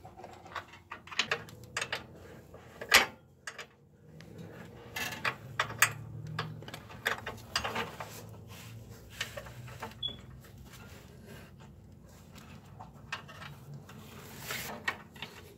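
Metal hand tools clicking and clinking irregularly as a wrench works a steel brake line fitting loose at a front brake, with one sharper clank about three seconds in. A faint low hum runs underneath through the middle.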